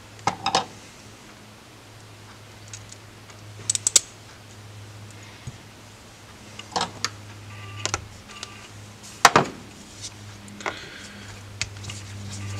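Irregular sharp clicks and clinks of small metal parts and a screwdriver against the aluminium body of an Edelbrock 1406 carburetor as the venturi clusters are worked loose and set down, the loudest about 4 s and 9 s in. A steady low hum runs underneath.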